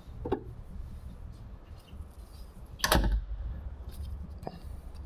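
Excavator cab door being opened by hand: a small click near the start, then one louder clunk about three seconds in.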